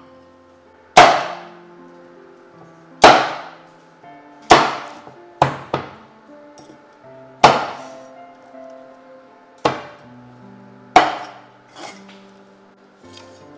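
Cleaver chopping through cooked crab shells on a wooden chopping board: eight sharp, hard strikes at uneven intervals of one to two seconds, two of them close together about halfway through. Background music plays throughout.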